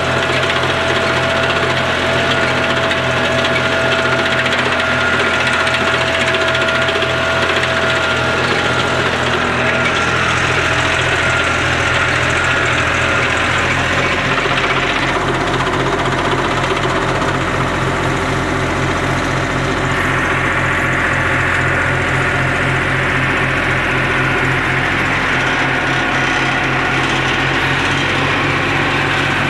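Tractor engine running steadily under load, driving a Maschio BC 160 flail mulcher through grass. The engine note shifts slightly about halfway through.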